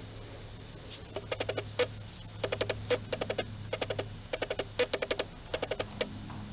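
Quick bursts of small sharp clicks, four or five at a time with a louder click ending each burst, repeating about once a second over a low steady hum.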